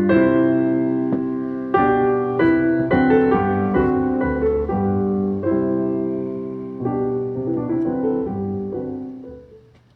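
Piano music from an FM radio broadcast playing through a Pioneer SX-780 stereo receiver. The notes sound one after another and the music grows gradually softer, dying away in the last second.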